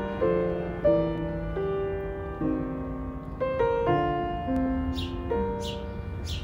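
Background piano music: a slow, gentle melody of single held notes over soft low tones.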